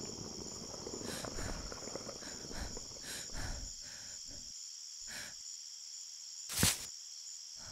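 Crickets chirping steadily in a night forest, with soft rustling in the first few seconds and one short, sharp sound near the end.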